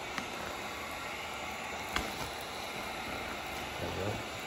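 Steady hiss of a heat gun blowing, used to soften vinyl wrap film being laid onto a car spoiler, with two sharp clicks about two seconds apart.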